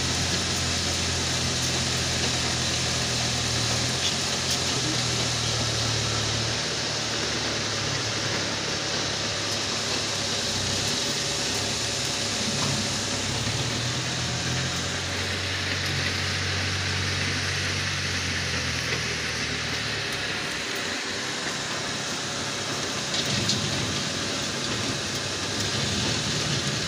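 Tractor engine running steadily, a low hum that shifts slightly in pitch now and then, under a steady hiss.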